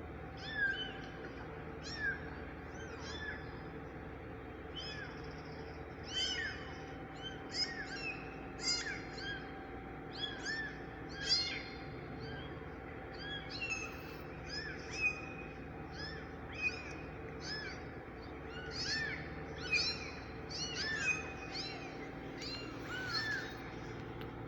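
Kitten mewing over and over: many short, high-pitched mews, one or two a second and sometimes overlapping, with a steady hum underneath.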